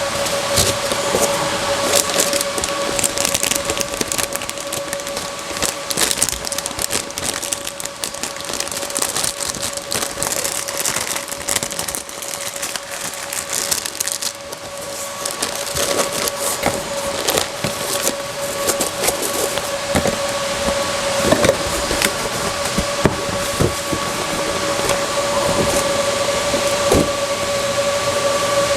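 Computer hardware being handled: irregular clicks, knocks and rustling of parts and packaging, over a steady hum.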